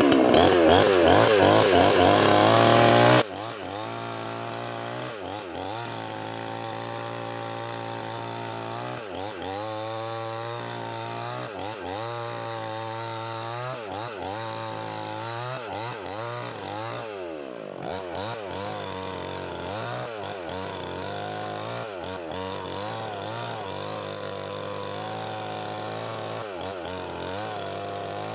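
Two-stroke gasoline chainsaw with a 20-inch bar cutting wood, its engine pitch rising and falling repeatedly as the throttle is worked and the chain bites. About three seconds in the sound drops abruptly to a much quieter level, and the saw keeps revving up and down.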